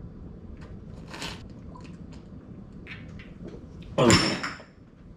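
A man chugging beer from two bottles at once: faint gulping and swallowing, then about four seconds in a sudden loud breathy vocal burst as he comes off the bottles.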